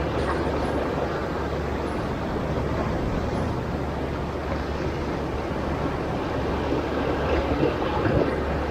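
Sea waves breaking and washing against a rocky shore: a continuous rushing surf with a deep low rumble, swelling a little near the end.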